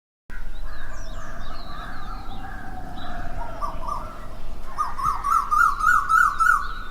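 Several birds calling and chirping, starting abruptly out of silence. About halfway through, one bird takes up a fast series of repeated rising chirps, roughly three a second, which is the loudest part.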